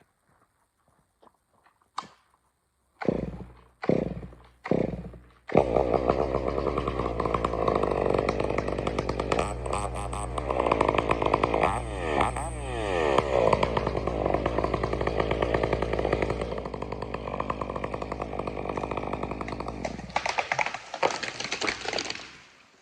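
Chainsaw being pull-started: three short bursts as the engine fires and dies, then it catches about five seconds in. It runs for about fifteen seconds with revs rising and falling, then stops near the end.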